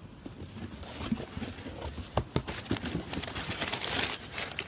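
A cardboard box being opened and its packaging handled: irregular rustling and crinkling with scattered knocks and clicks, the rustle swelling toward the end.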